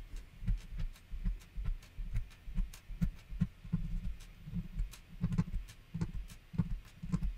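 Needle-nose pliers pulling LEDs and resistors out of a plastic solderless breadboard: scattered small clicks, with irregular low thumps throughout.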